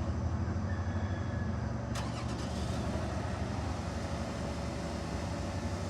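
A motor running steadily with a low, pulsing rumble, and a single sharp click about two seconds in.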